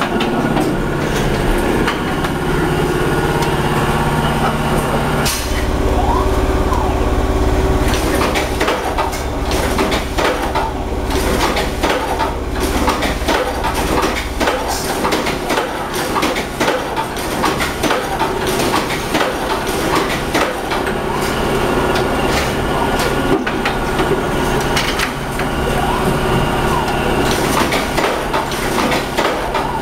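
Frozen-fish cutting line running: a steady machine hum, with a deeper rumble for a few seconds near the start and frequent knocks and clatter after that.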